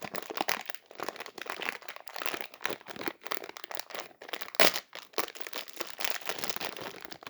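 Plastic packaging crinkling and rustling in irregular bursts as a mirror block cube is unwrapped and handled. The sound cuts off suddenly at the end.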